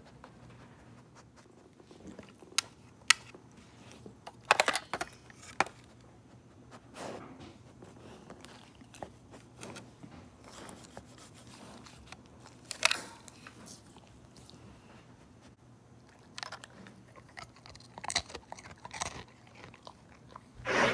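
Doodle dog licking and mouthing a plastic rotary-dial telephone: scattered sharp clicks and knocks on the plastic with wet mouth sounds, busiest in the middle and again near the end.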